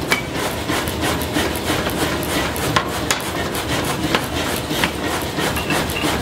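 Forging hammer blows on red-hot steel: sharp metal clanks at uneven intervals, roughly one a second, over a continuous clatter of workshop hammering.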